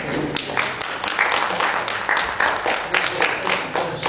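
Audience clapping, a dense run of sharp claps at about five a second, with voices coming in under it near the end.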